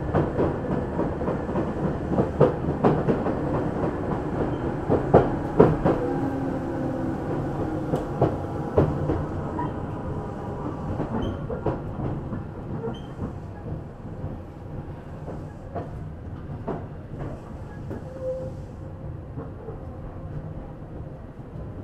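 Tokyu 8500 series electric train running, its wheels clicking over rail joints and points over a steady rumble, with a falling motor whine. The clicks space out and the sound gets quieter as the train slows.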